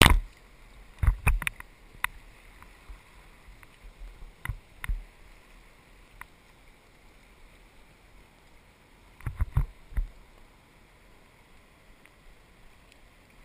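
Inflatable raft drifting on a river: a faint steady rush of water, broken by sharp knocks and thumps in three clusters: four about a second in, two around four and a half seconds, and three near nine and a half seconds.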